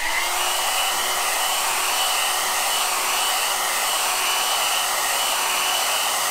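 Handheld hair dryer running steadily, blowing across a watercolour painting to dry the wet paint: an even rush of air with a faint steady whine.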